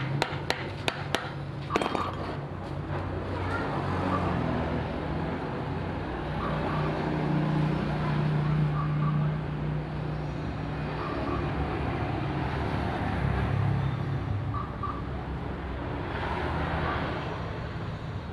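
A few sharp knocks in the first two seconds, then an engine running steadily, its pitch and level swelling and easing off several times.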